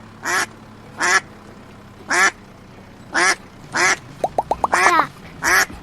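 A duck quacking: a series of about seven short quacks, roughly one a second, with a quick run of short notes just before the sixth quack.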